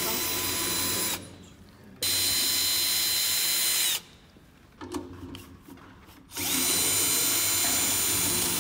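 Cordless drill spinning a drum's tension rods at the rim lugs. It runs in three spells of about one to two seconds each, with a steady high whine that dips in pitch as each spell ends and short pauses between them.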